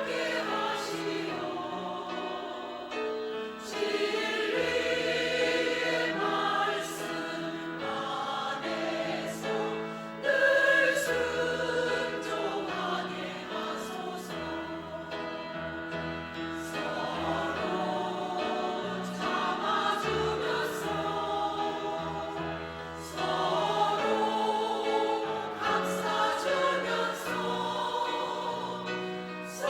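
Church choir singing a Korean hymn in several voice parts, the phrases swelling louder at times.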